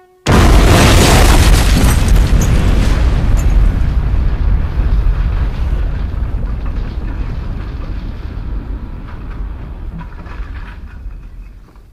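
Bomb explosion sound effect: a sudden, very loud blast, then a long low rumble that slowly dies away over about eleven seconds.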